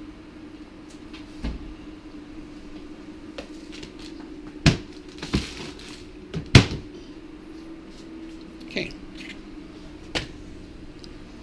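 A handful of short, sharp knocks and clatters from things being handled in a kitchen, the two loudest a little before and a little after the middle, over a steady low hum.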